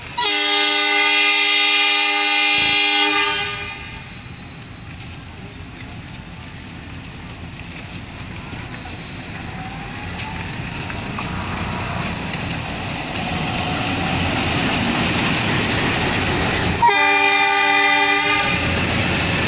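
Diesel locomotive of an approaching freight train sounding its horn in a long blast of about three and a half seconds. Its engine and wheel noise then grow steadily louder as it nears, and a second horn blast starts near the end as the locomotive comes alongside.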